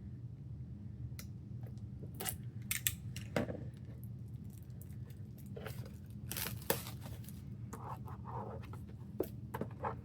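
Album packaging being handled: scattered paper and plastic rustles, scrapes and light clicks, with a cluster of louder ones about two to three seconds in and again around six to seven seconds in.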